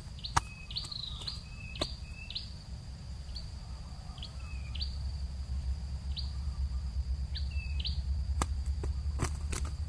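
Small bird's repeated high chirps, each dropping sharply in pitch, spaced irregularly, over a steady high-pitched whine and a low rumble, with a few sharp clicks.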